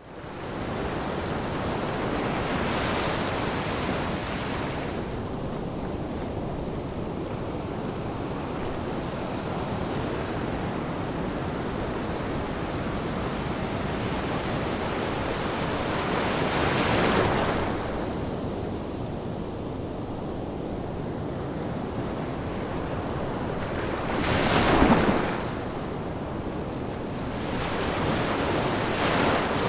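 Ocean waves breaking on a beach, a steady wash of surf with single waves swelling and crashing every several seconds, the loudest about two thirds of the way in.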